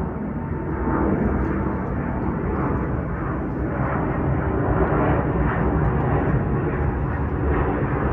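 Jet engines of an Airbus widebody twinjet departing overhead: a steady, deep rumble that swells slightly about a second in.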